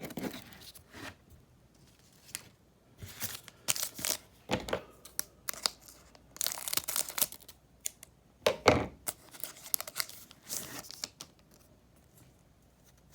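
Trading-card pack wrapper being torn open and crinkled: a string of short rips and rustles, the loudest a little past the middle.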